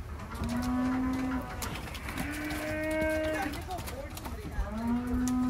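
Sheep bleating: three long, level calls of about a second each, with shorter calls from other animals overlapping between the second and third.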